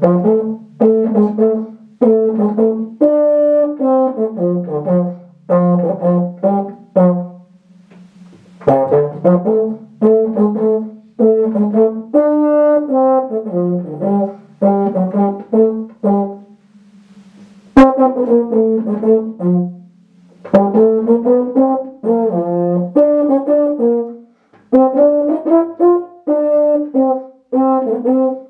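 Euphonium played solo in phrases of short, detached notes, with brief pauses between phrases.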